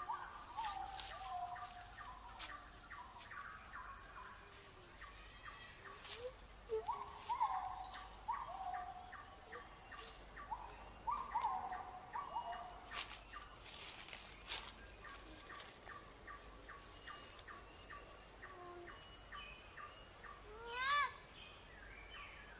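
Birds calling outdoors: a series of short swooping calls, then a run of quick even ticking in the second half, and one loud rising call near the end.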